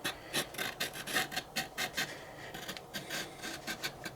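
Hand tool scraping back and forth on a dried gourd shell in short rasping strokes, about two to three a second, scoring and cutting out a birdhouse entrance hole.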